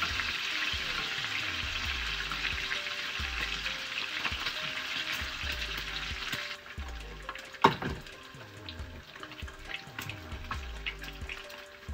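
Bacon sizzling in a frying pan while a whisk stirs in a saucepan; the sizzling drops away suddenly about six and a half seconds in. About a second later comes one sharp clack, a glass lid set down on the saucepan.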